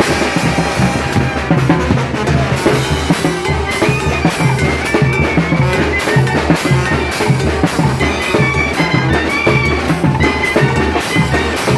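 Brass band playing a Mixtec chilena: drums keep a steady beat under the horns' sustained melody.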